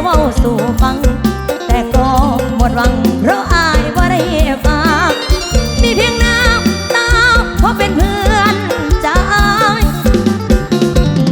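Live Thai mor lam band music played loud through a sound truck's PA: a steady heavy drum beat under a wavering lead melody.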